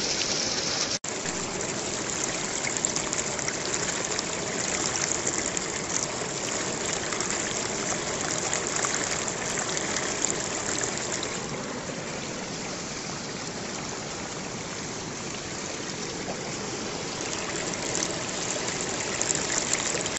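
Running water rushing steadily, like a stream, with a very brief break about a second in.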